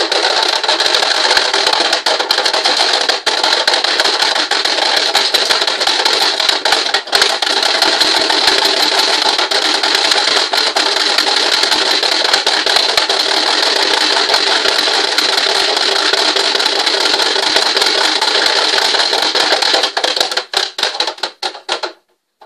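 Loud, continuous buzzing and rattling motor noise, presented as a chainsaw running, which cuts off suddenly near the end.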